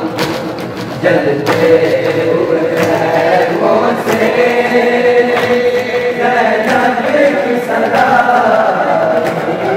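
Group of voices chanting a noha, a Shia mourning lament, in long held lines.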